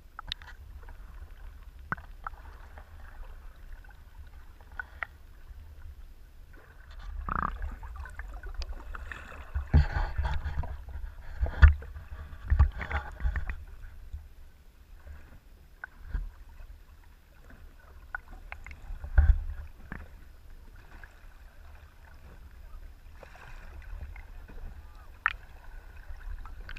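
Muffled underwater sound picked up by a submerged action camera: a steady low rumble of moving water with scattered clicks and knocks, a busier stretch of knocking and splashy bubbling in the middle, and a sharp thump about two-thirds through.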